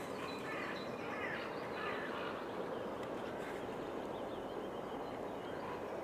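Outdoor ambience: a steady rushing noise with faint bird calls in the first half.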